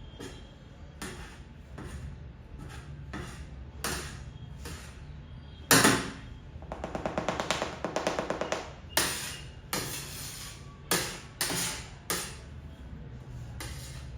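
Kitchen utensils and dishes being handled: scattered knocks and clinks, a loud knock about six seconds in, then a quick rattle of rapid taps for about two seconds, followed by a few more knocks.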